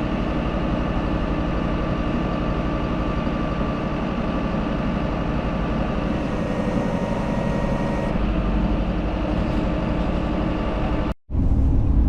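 Tractor engine running steadily, heard from inside the cab, with a faint whine in the middle. Near the end it breaks off for a moment and a louder, deeper engine rumble follows.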